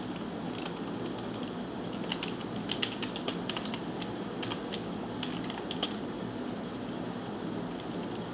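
Computer keyboard typing: irregular runs of short key clicks over a steady low hum.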